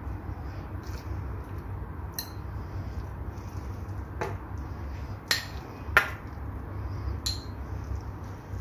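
A metal table knife clinking against glass dishes while it spreads mashed carrot: five sharp clinks, the loudest about six seconds in, over a steady low hum.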